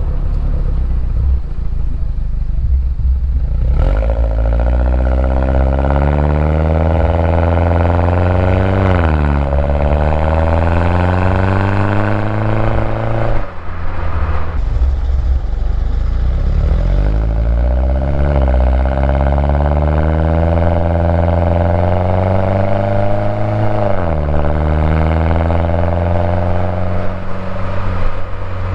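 2011 Mini Cooper S R56's turbocharged 1.6-litre four-cylinder on its stock exhaust, pulling through the gears. It starts with a steady low rumble, then the engine note climbs several times, each climb ending in a sudden drop at a gear change, and it settles to a steady cruise near the end.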